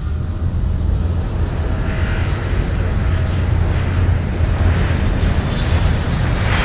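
Jet airliner engines running: a steady deep rumble with a rushing hiss that grows stronger near the end.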